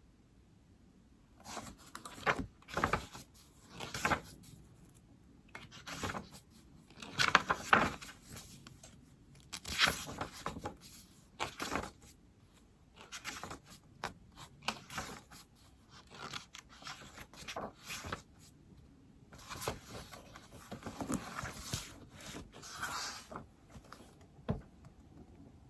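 Stylus writing on an iPad screen: irregular runs of scratchy strokes, some short and some drawn out, with brief pauses between them.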